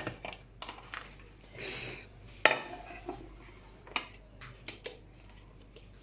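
Cake mould and serving plate clattering and knocking as a baked cake is turned out of the mould onto the plate, with scattered light clinks and one sharp knock about two and a half seconds in.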